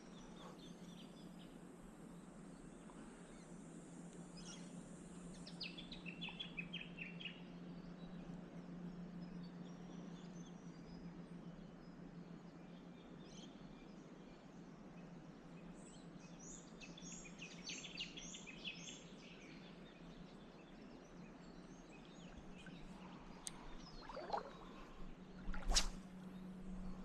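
Faint outdoor ambience with birds calling: quick runs of high chirping notes, once a few seconds in and again past the middle, over a steady low hum. A single sharp click near the end.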